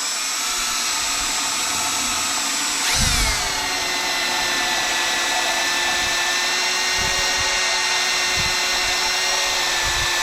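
Electric drill with a 5/32-inch bit pre-drilling a pilot hole in metal, its motor running with a steady whine. About three seconds in the pitch drops as the bit bites, then holds steady under load until it stops near the end.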